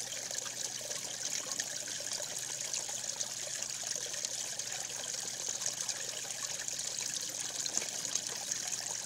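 A steady trickling hiss, like running water, with no clear start or stop.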